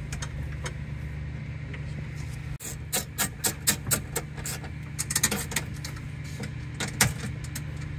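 A run of sharp clicks and taps, several a second for a couple of seconds midway and one more near the end, from a 10 mm wrench tightening quarter-20 bolts on a shelf rail. A steady low hum runs underneath.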